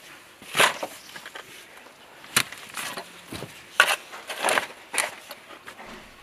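A steel spade digging into wet red clay soil: a series of sharp scraping, crunching strokes as the blade cuts in and lifts the clods, the first about half a second in and the others at irregular gaps of about a second.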